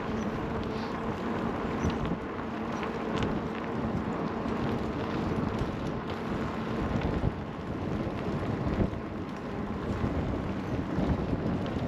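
Wind buffeting the microphone: a steady rumbling noise that swells and dips in small gusts, with a faint steady hum under it.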